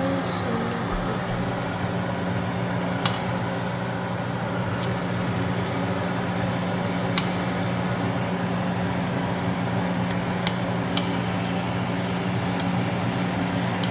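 Steady hum of a running appliance motor, like a fan, with an even hiss over it and a handful of sharp clicks scattered through.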